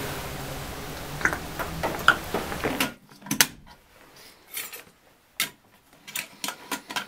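Camping cookware being handled: scattered light clinks and knocks of a metal pot, mug and plastic bowls. A steady hiss fills the first three seconds, then cuts off.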